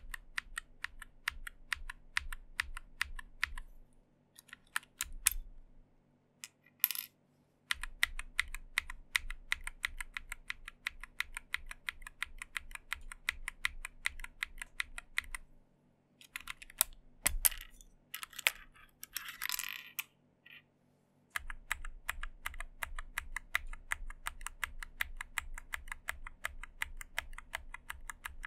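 Nuphy Air96 low-profile mechanical keyboard being typed on in quick runs of key clicks, its keys fitted with a mix of swapped-in test switches pressed for comparison. There are two pauses, the second holding a few single clicks and a short rustle.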